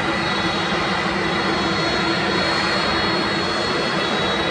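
An Airbus A330-300's two GE CF6-80 turbofan engines running at low taxi power as the airliner turns onto the runway: a steady jet rush with a constant high whistle and a lower hum.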